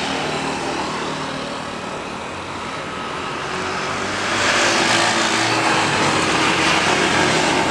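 Airbus A330-200's General Electric CF6 turbofans at takeoff thrust during the takeoff roll and rotation. The jet roar swells sharply about four seconds in and stays loud.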